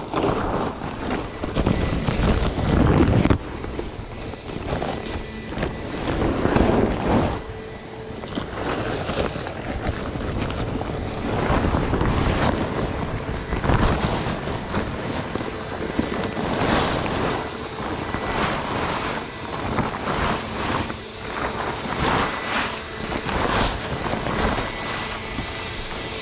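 Plastic poly tarps rustling and crinkling in uneven bursts as brush clippings are gathered and bundled into them, with wind on the microphone. A faint steady hum runs underneath.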